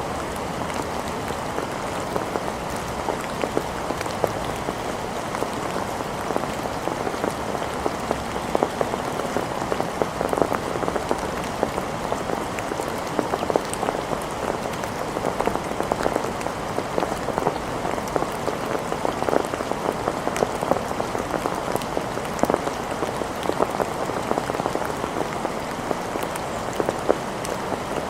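Steady rain falling, with a dense patter of individual drops striking a hard surface. No thunder is heard.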